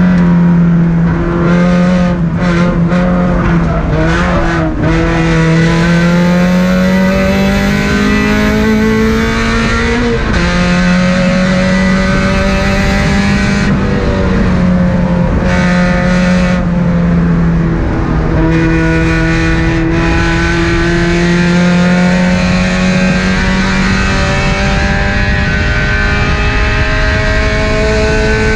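Car engine pulling hard on a race track, its pitch climbing steadily and dropping back at gear changes about ten and eighteen seconds in.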